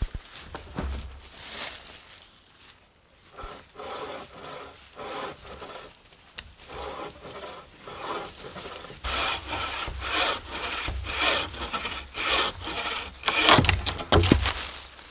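Bow saw cutting through a dead log, with steady back-and-forth strokes. The strokes are quieter at first and become loud and regular, about two a second, from about nine seconds in.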